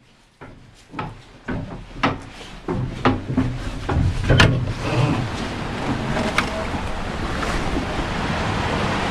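Aboard a two-masted schooner: a string of sharp knocks and creaks from the boat for the first few seconds, then a steady rush of water and wind that grows and holds.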